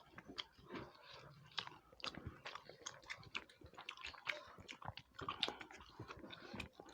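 People chewing food close to the microphone: faint, irregular small clicks of chewing and mouth sounds throughout.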